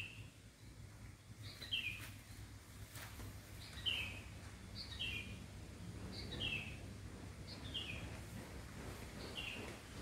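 A bird calling repeatedly, a short falling chirp given about every one to two seconds, over a faint steady low background hum.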